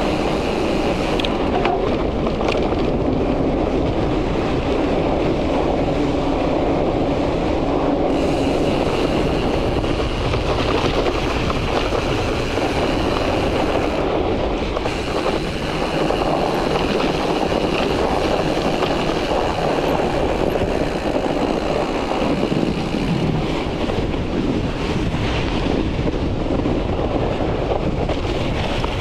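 Studded bicycle tyres rolling over lake ice, a steady rolling noise with no breaks.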